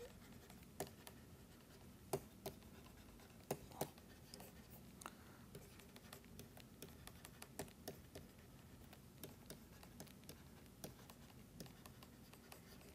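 Faint, irregular taps and scratches of a stylus writing on a tablet screen, over near-silent room tone.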